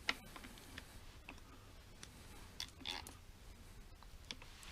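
A few faint, scattered clicks and taps of hand tools at work, the loudest a little under three seconds in, as the crank pulley bolt is being tightened.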